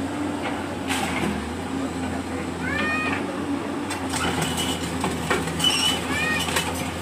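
A Hyundai hydraulic excavator's diesel engine running steadily while it demolishes a house, with knocks and crashes of falling brick and roof rubble. Over it, a few short high calls that rise and fall come every second or two in the second half.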